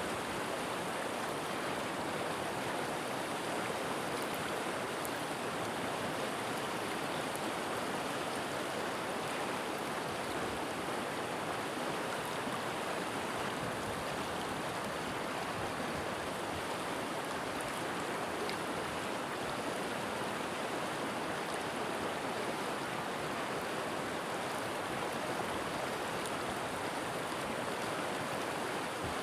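A river's water flowing and rushing steadily, an even, unbroken wash of sound.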